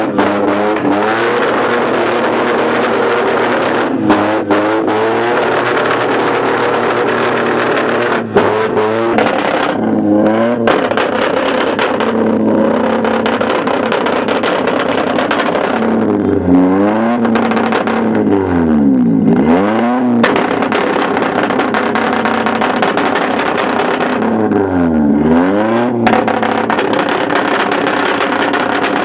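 Modified Proton Satria hatchbacks' four-cylinder engines being revved hard while standing still through loud aftermarket exhausts, held at high revs with several sharp drops and climbs in pitch, the deepest near the middle and again later.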